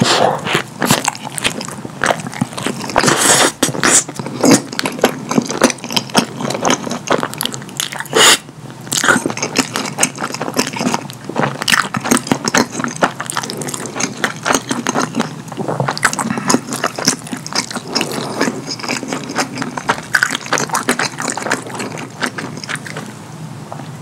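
Close-miked wet chewing and lip-smacking of a cheese-sauce-covered chili cheese dog: a dense run of sticky clicks and smacks, with one louder burst about eight seconds in.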